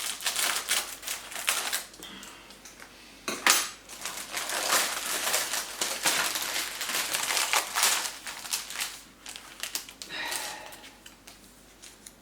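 Small metal parts and tools clinking and rattling as they are handled and set down, in irregular clusters, with one sharper knock about three and a half seconds in.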